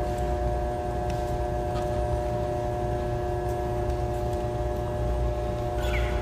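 Steady mechanical hum with a constant low rumble and several held tones that do not change, with a few faint clicks.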